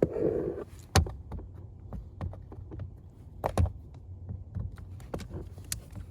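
Scattered sharp clicks and knocks of a hand tool and screws against the blower motor housing of a 2006 Honda Civic while its T20 screws are being taken out. The loudest click comes about a second in.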